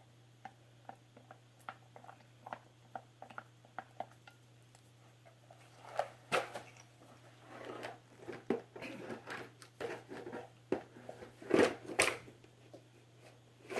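Plastic containers and craft supplies being handled and rummaged through by feel: a string of light clicks and taps, with louder bursts of clatter around the middle and again near the end.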